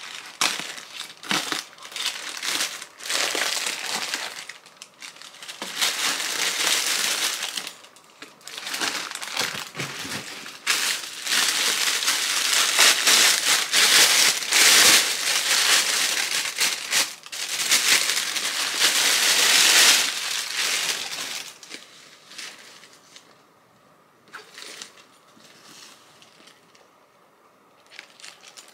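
Plastic mailer bag and thin plastic wrapping crinkling and rustling loudly as the package is cut open with scissors and its contents pulled out of their bags. The crinkling is heaviest in the middle and dies down about two-thirds of the way through to faint, occasional rustles.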